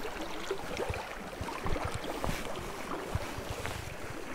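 Flowing river water running past the bank, with light wind on the microphone and scattered small clicks and rustles.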